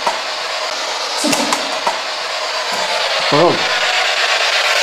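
Steady loud hiss, with a few faint clicks just over a second in and one brief voice-like sound about three and a half seconds in.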